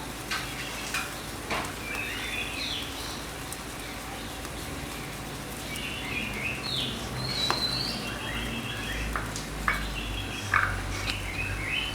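Small birds chirping repeatedly in the background, with a few faint light clicks.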